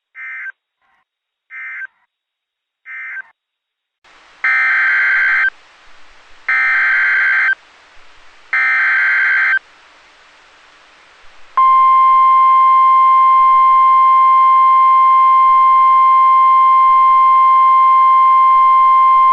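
Weather radio SAME alert data: three short end-of-message bursts about a second and a half apart, then three longer header bursts of screechy digital tones about two seconds apart, closing one warning and opening the next alert. About twelve seconds in, a single steady, loud warning alert tone begins and holds.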